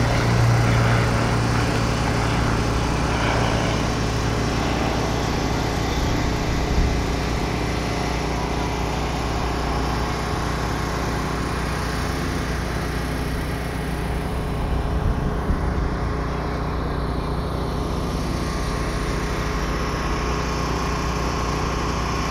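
A small engine running steadily, with a low hum that is strongest for the first few seconds and then eases off.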